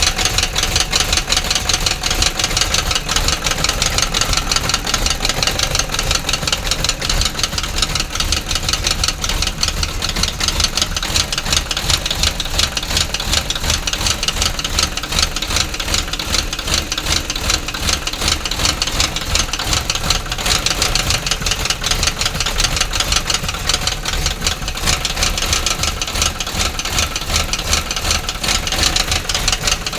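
Engine idling with a rapid, steady, even knocking clatter, the kind of abnormal engine noise taken as a warning of engine trouble.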